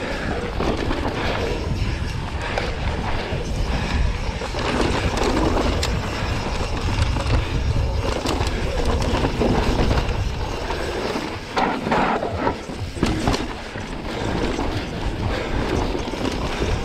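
Pivot Firebird enduro mountain bike descending a rough, rocky dirt trail at race pace: steady tyre rumble over dirt and gravel, broken by sharp clatters as the bike hits rocks, under a heavy low rush of wind on the microphone.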